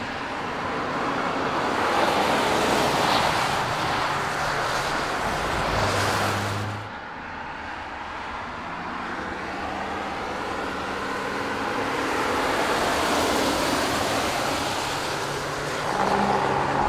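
Camouflaged Jaguar XF prototype driving past on a wet track: engine with the hiss of tyres on wet tarmac, swelling as it nears. The sound breaks off suddenly about seven seconds in, and a second pass swells and fades.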